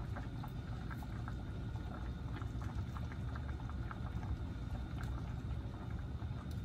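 Pot of chicken noodle soup boiling steadily, with small bubbles popping in scattered faint ticks.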